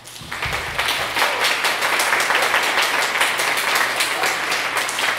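Audience applauding, many hands clapping together; it starts just after the opening and quickly swells to a steady level.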